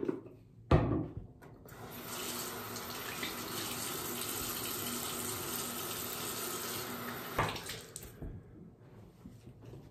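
Bathroom sink faucet running steadily for about six seconds while the face is washed, then shut off. A sharp click comes just before the water starts.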